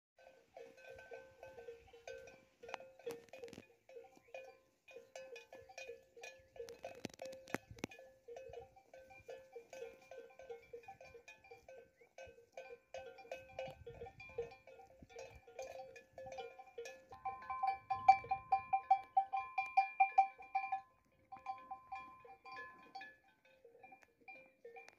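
Bells on grazing cattle clanking in a long run of short strokes, a few a second. About two-thirds of the way through, a brighter bell rings louder and faster for a few seconds.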